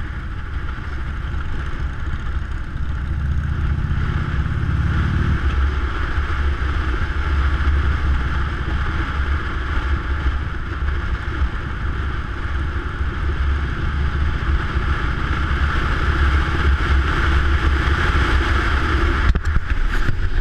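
Touring motorcycle riding along, heard from a camera on the bike: a steady rush of wind over the microphone with the engine running low underneath. About three to five seconds in, the engine note rises briefly as the bike accelerates.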